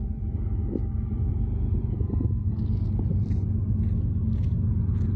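BNSF diesel-electric freight locomotive passing close by, its engine and wheels making a steady low rumble. Short clicks and ticks come in over it from about halfway through.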